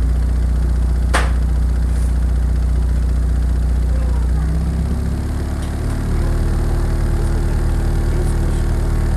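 Car subwoofer with a homemade voice coil playing a loud, deep, steady test tone. It is being driven hard to heat the coil for a temperature test. The tone changes pitch about four and a half seconds in and again about six seconds in, and there is one sharp click about a second in.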